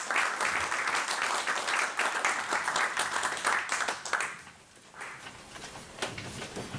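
Room of seated people applauding, dense clapping that dies away about four seconds in.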